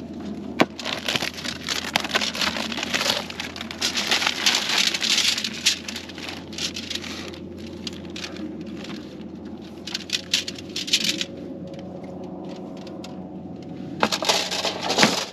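Plastic packaging crinkling and rustling in irregular bursts as a coil of 3/8-inch copper tubing is handled and unwound from it. It goes quieter for a few seconds before a last burst near the end, with a steady low hum underneath.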